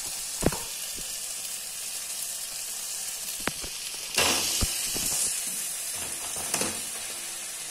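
Onion-chilli masala sizzling steadily in a steel kadai, with a few light knocks; the sizzle grows louder for about a second about four seconds in, and fried idli pieces are tipped into the pan near the end.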